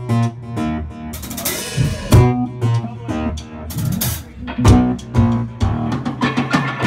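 Live band playing an instrumental passage: electric guitar and bass guitar over a drum kit with repeated kick and cymbal hits.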